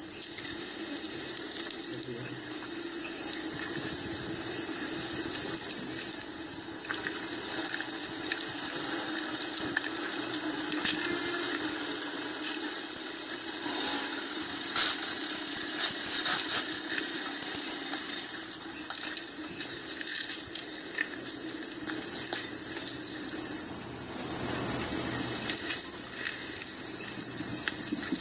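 Insects droning steadily at a high pitch, a continuous shrill hiss that swells a little near the middle.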